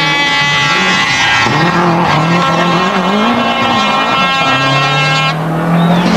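Toyota Celica GT-Four rally car's turbocharged four-cylinder engine revving up and down hard as the car slides through a corner. A steady high-pitched squeal sits over it and cuts off about five seconds in.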